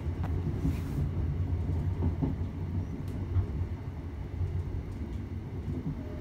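Cabin of a Class 321 electric multiple unit in motion: a steady low rumble from the wheels and running gear on the track. A few light clicks and rattles come through near the start and about three seconds in.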